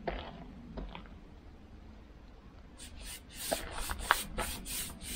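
Brush rubbing wood treatment oil onto rough timber boards, with a few light knocks of the brush against the wood. About three seconds in, music with a quick, even beat comes in over it.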